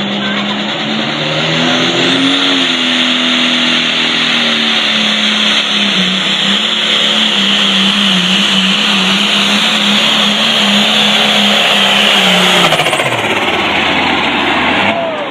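Super Farm pulling tractor's engine running at full throttle under load during a pull. Its pitch climbs about two seconds in, holds with a slight waver, then falls away near the end as the throttle comes off.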